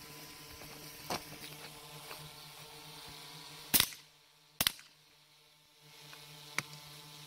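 Two handgun shots fired about a second apart, sharp and loud, near the middle. A couple of fainter sharp cracks come before and after them, over a faint steady hum.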